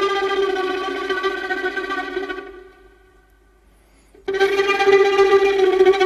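Instrumental background music with long held melody notes; it fades out a little over two seconds in, leaves about a second and a half of near silence, then starts again abruptly a little after four seconds.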